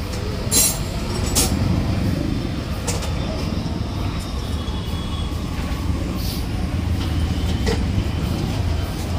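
Steady low rumble of vehicle engines running, with a few sharp clicks scattered through it.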